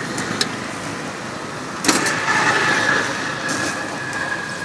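Street ambience with motor traffic noise. About two seconds in it gets suddenly louder, and a steady high-pitched tone then holds for a couple of seconds.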